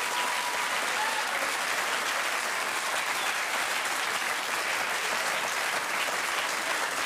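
Studio audience applauding steadily, a dense even clapping that holds at the same level throughout.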